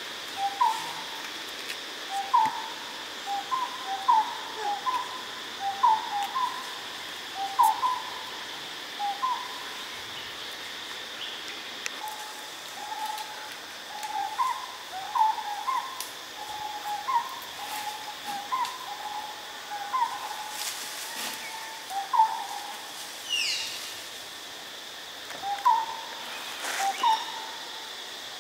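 A forest bird calling: runs of short hooting notes, often in pairs, with brief pauses between runs, over a steady high-pitched drone.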